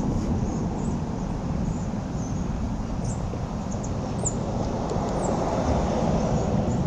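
Steady low rumbling outdoor noise, with a few short, high, falling bird chirps about three to five seconds in.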